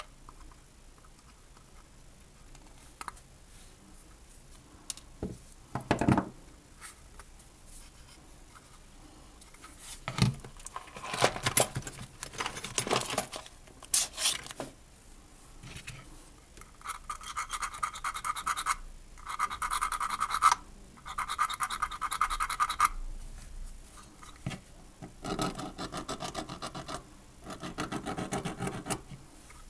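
Hand scraping and rubbing on small parts, in several bursts with a knock about six seconds in; the later bursts go in quick back-and-forth strokes. This is hand work on the car heater blower resistor's thermal fuse and its wiring.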